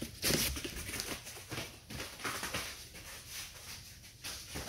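Footsteps and a puppy's paws moving across floor mats: a scattering of soft taps and scuffs, loudest near the start.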